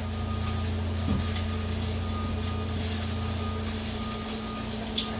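Microwave oven running with a steady low hum, a faint high tone sounding on and off above it.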